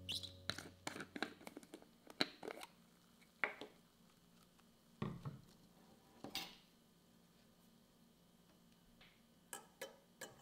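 Quiet scattered clicks and taps of handling: a screw cap twisted off a plastic bottle, a glass mug of ice shifted on a wooden table, and a few metal clicks near the end as a tea strainer is lifted off its rest.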